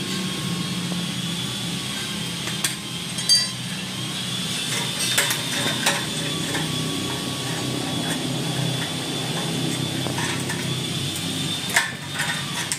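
A few light metal clinks and taps from exhaust pipe parts and hand tools being handled, over a steady hum.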